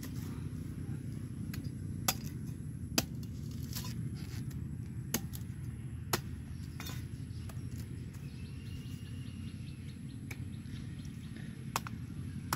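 Machete chopping into the husk of a green coconut: about seven sharp chops at uneven intervals, the loudest two about two and three seconds in, over a steady low rumble.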